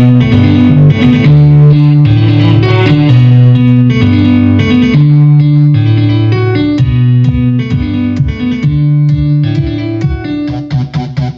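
Guitar-led music played back through a Sony CMT-SBT100 micro hi-fi system, with strong low notes; it thins out near the end.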